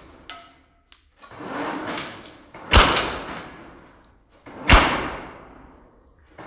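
Airsoft AK-47 shots and BB hits on apples, played back slowed down in slow motion: two deep, drawn-out cracks about two seconds apart, each rising out of a swelling rush and fading slowly after.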